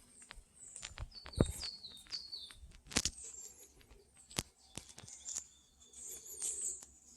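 Wild birds singing in the forest, with a run of short falling whistles about a second in. Footsteps on the forest road give sharp taps throughout, and the loudest comes about a second and a half in.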